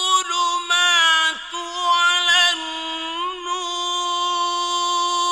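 A solo voice in melodic Quranic recitation, drawing out long held notes with small ornamental turns and brief breaks between phrases, ending on one long held note.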